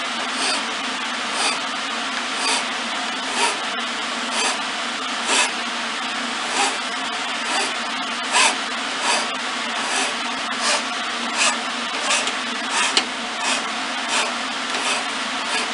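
A wood file rasping in repeated strokes across a twisted wooden spindle held in a lathe, smoothing the bulge of the twist. The strokes come about once a second and a little faster near the end, over a steady background noise.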